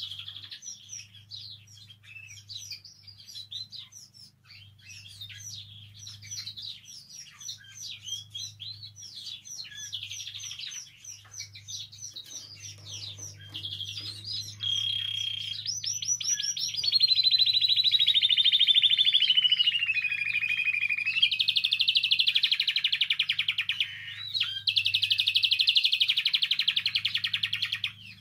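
Spanish timbrado canary singing: quick chirping notes for the first half, then a much louder run of rapid rolling trills, one of them sliding slowly down in pitch.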